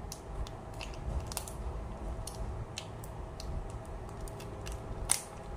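Small plastic sachet of chicken oil being worked open by hand: a run of short, irregular crinkles and crackles, with a sharper tear about five seconds in.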